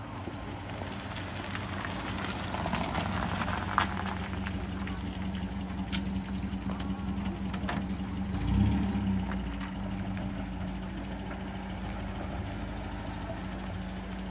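Engine of a classic 1950s saloon car running at low revs as it pulls away and creeps past, swelling briefly about eight and a half seconds in. A few sharp clicks sound over it, the loudest nearly four seconds in.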